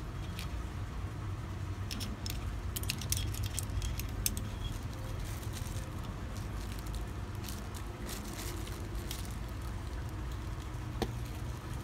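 Metal scope rings and a small Allen key handled in the hands, with a plastic bag crinkling: scattered light clicks and crackles, busiest in two stretches and with one sharp tick near the end, over a steady low hum.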